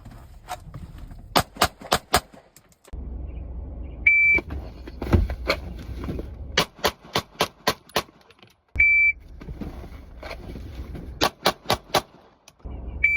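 A short steady electronic beep followed by a quick string of sharp shots, repeated three times: four or five shots after the first beep and a longer string after each of the next two. A low rumble runs under the later rounds.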